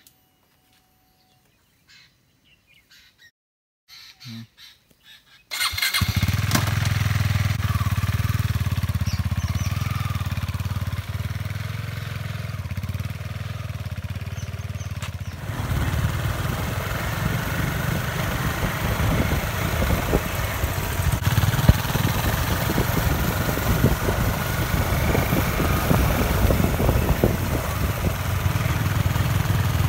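KTM motorcycle engine starting about five seconds in after a few faint knocks, then running. The sound changes abruptly about fifteen seconds in and goes on at the same loudness as the bike is ridden.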